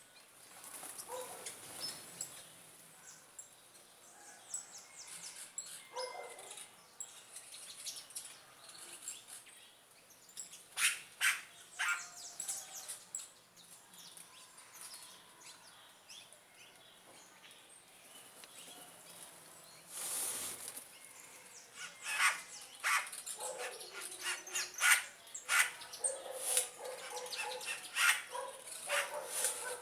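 Backyard birds chirping and calling in short, sharp notes, busiest around the middle and again toward the end.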